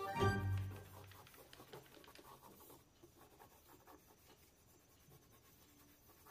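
Background music ends about a second in; after that, faint rubbing and scratching of nitrile-gloved hands pressing and folding the edges of a buttered dough sheet on a table.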